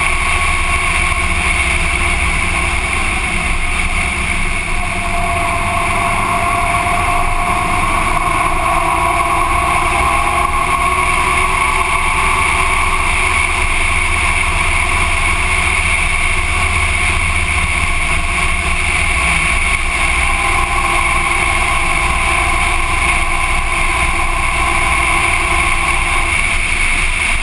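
Motorcycle cruising at steady road speed, its engine running under a heavy, constant wind rumble on the bike-mounted camera's microphone.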